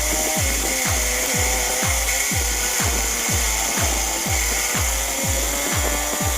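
Background music with a steady kick-drum beat, about two thumps a second, over a steady high whine.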